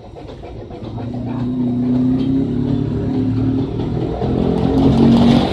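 LG Turbo Drum WF-T9001S washing machine spinning, a steady motor hum that grows louder from about a second in.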